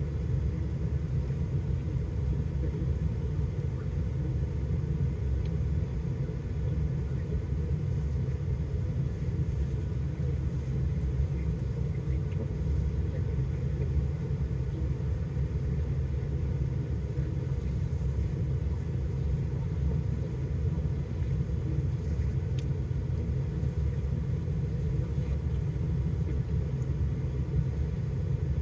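Steady low rumble inside a vehicle's cabin, the vehicle's engine idling.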